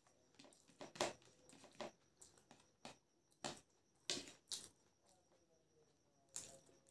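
Close-up eating sounds of a person eating biryani by hand: a scatter of short, quiet mouth clicks and smacks from chewing, with fingers mixing the rice.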